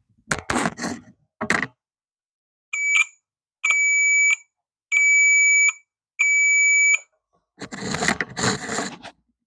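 Piezo continuity beeper of a Circuit Specialists CSI2010 digital multimeter sounding four separate beeps, each a steady high tone, as the beeper is tested. Rustling handling noise comes before and after the beeps.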